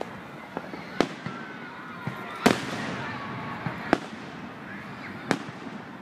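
Aerial fireworks shells bursting: about seven or eight sharp bangs at irregular intervals, the loudest about two and a half seconds in.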